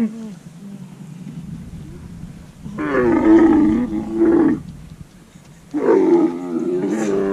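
Dromedary camel bellowing twice in long, loud calls while being couched for riders to dismount.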